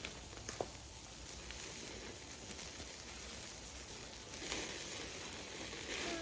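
Meat sizzling on a grill, with a few sharp crackles from the fire.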